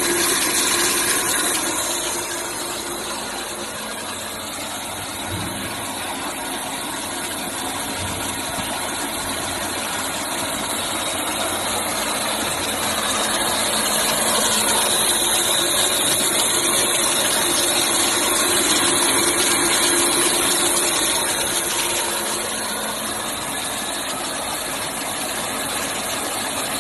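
Floating fish-feed pellet extruder running: a steady mechanical noise with a hiss, easing a few seconds in, growing louder again towards the middle and easing near the end.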